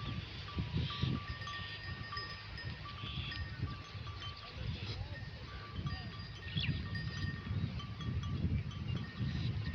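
Bells worn by grazing sheep clinking irregularly, several bells of different pitches ringing on and off, over a low rumbling noise.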